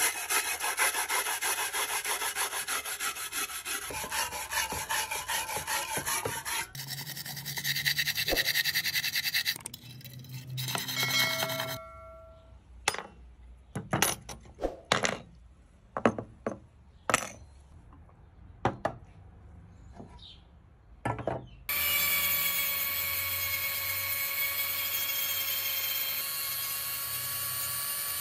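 A wire brush scrubbing a steel kerosene stove tank in soapy water, with a fast rhythmic rasping. Then scattered clinks and taps of small metal parts being handled. About 22 s in, a small rotary tool starts and runs with a steady whine, its sanding drum working a brass valve body.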